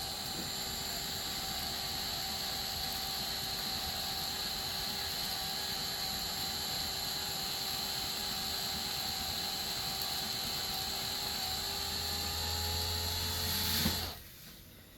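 Cordless drill motor running steadily, turning the chain of a K'nex roller coaster lift hill, a constant whine with the chain's clatter underneath. It cuts off near the end.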